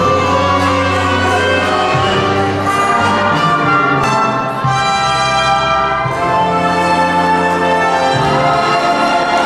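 Dance orchestra playing a waltz.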